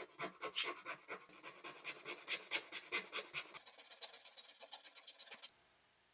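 A rapid series of small clicks and scratches for about three and a half seconds, then lighter ticking over a faint high whine that stops near the end.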